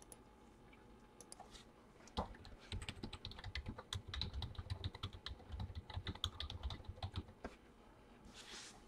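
Typing on a computer keyboard: a quiet, quick run of key clicks starting about two seconds in and lasting some five seconds, followed by a brief soft rush of noise near the end.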